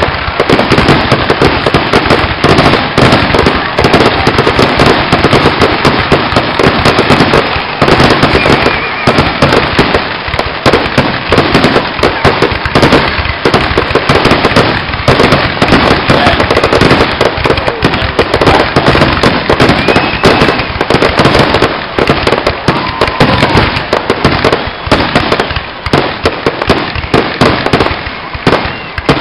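Ground firework spraying sparks, going off in a dense, rapid crackle of many small pops.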